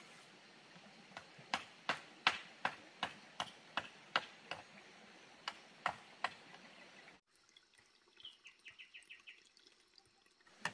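A run of sharp knocks or snaps, two or three a second, stops abruptly. A faint rapid trill of short high chirps follows.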